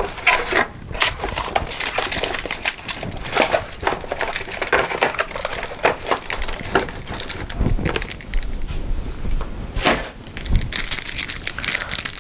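Cardboard box and packaging being rummaged through: a run of rustling, crinkling and sharp clicks and knocks as parts are handled and the I/O shield is pulled out of the motherboard box.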